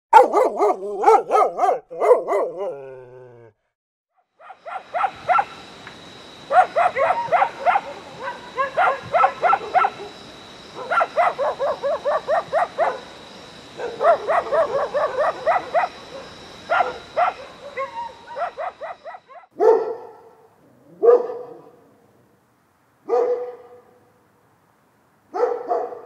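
Different dogs barking in a string of separate recordings. First comes a quick burst of barks, then a long run of rapid barks in clusters with a faint steady high tone behind them, and near the end single barks a second or two apart.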